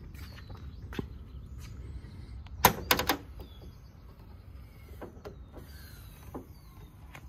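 A quick run of sharp clicks and knocks about two and a half seconds in, then a few fainter knocks as the rear engine lid of a Ferrari 308 is lifted open; the engine is not running. Birds chirp faintly in the background.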